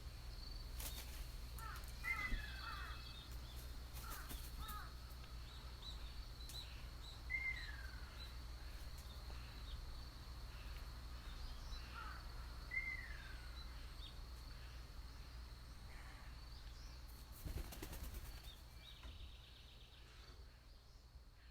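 Outdoor rural ambience: a bird gives three falling calls several seconds apart over a steady high-pitched insect drone, with a few soft knocks, fading out near the end.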